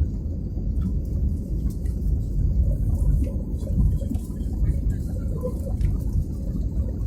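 Steady low rumble of an airliner's engines and airflow heard from inside the cabin, with a few faint clicks.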